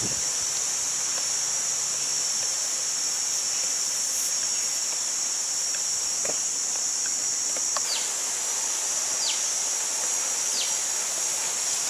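Steady, high-pitched drone of a chorus of insects. A bird gives three short, falling whistles about a second and a half apart near the end.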